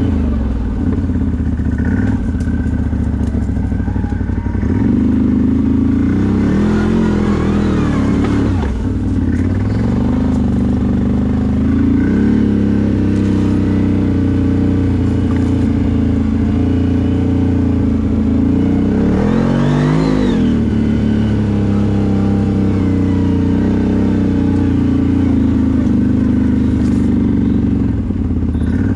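CFMOTO CForce 1000 ATV's V-twin engine running under way, its pitch rising and falling as the throttle is opened and closed a few times, most sharply about two-thirds of the way through.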